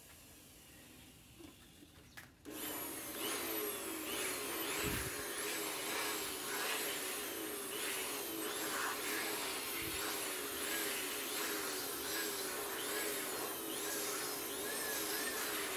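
A small electric motor starts about two and a half seconds in and runs steadily, its pitch wavering up and down in a regular rhythm.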